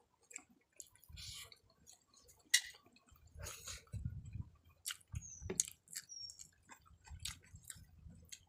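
Close chewing and mouth sounds of people eating a meal of rice and curries, with scattered small clicks and soft irregular thuds. Two brief high chirps come about five and six seconds in.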